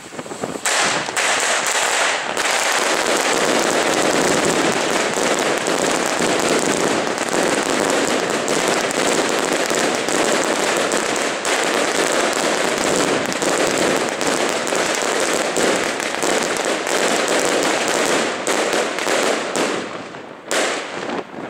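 Twelve Thor Lucifer 16-shot firework cakes fired together: golden-tail shots whistling up and ending in bangs, in a dense continuous barrage. It thins to separate bangs and stops about twenty seconds in.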